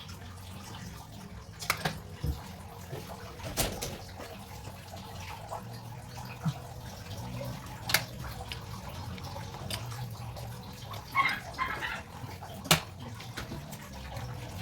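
Scattered sharp metal clinks and knocks, about five in all, from hand work on a water faucet being fitted, over a steady low background.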